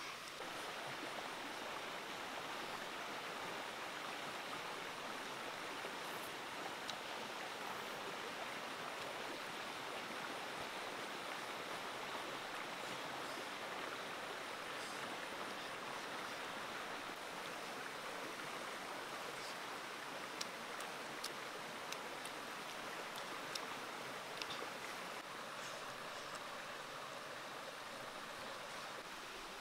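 Steady, faint rush of flowing water like a stream, with a few faint ticks over it.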